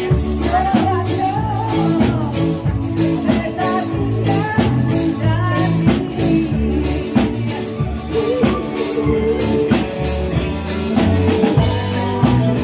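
A live band playing dance music: drum kit keeping a steady beat under bass, guitar and a singing voice.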